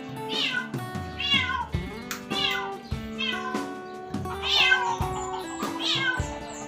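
Background music with sustained notes and repeated high falling glides, roughly one a second.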